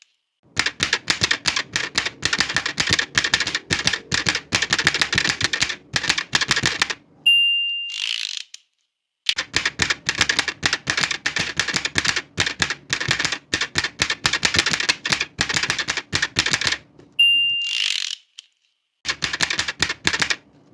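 Old manual typewriter being typed on in fast runs of keystrokes. Twice, at the end of a line, the bell dings once and the carriage is swept back with a short zip, and then typing starts again.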